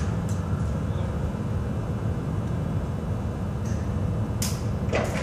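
Steady low mechanical drone in a workshop. Over it come a few light metallic clicks and two sharper clanks near the end, from tools and parts being handled on a forklift that is being taken apart.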